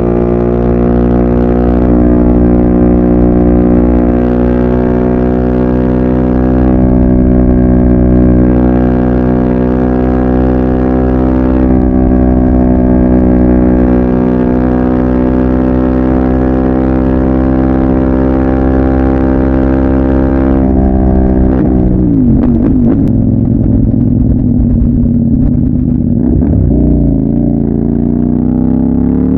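CFMOTO 800MT parallel-twin engine running through a full Yoshimura exhaust with no catalytic converter, loud and deep. It holds a steady raised speed for about twenty seconds, drops to a lower, uneven note, then rises again near the end.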